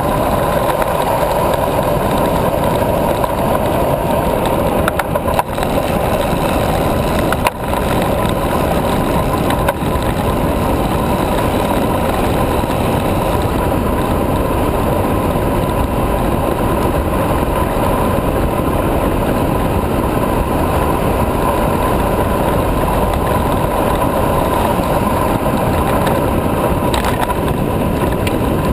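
Steady rushing wind noise on a GoPro microphone mounted on an M5 carbon high-racer recumbent bicycle descending at speed, mixed with the tyres rolling on asphalt. A couple of short knocks come about five and seven and a half seconds in.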